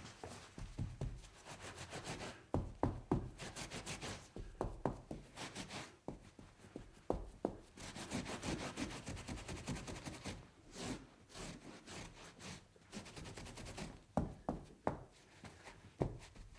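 A spill being cleaned up: repeated rubbing and wiping strokes with scattered light knocks.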